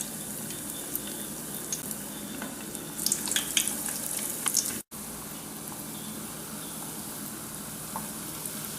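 Breaded chicken croquettes deep-frying in hot oil: a steady sizzle with scattered crackles and pops, busiest about three to four and a half seconds in. It breaks off for an instant about five seconds in, then the sizzle carries on.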